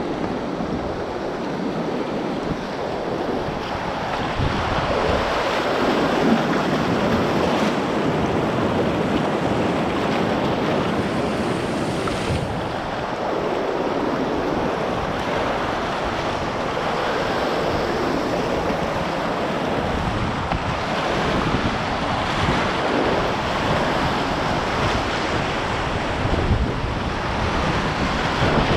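Whitewater rapid rushing and splashing around a kayak, heard from the boat, growing louder a few seconds in as the boat moves into rougher water. Paddle blades dip and splash alongside, and wind buffets the microphone.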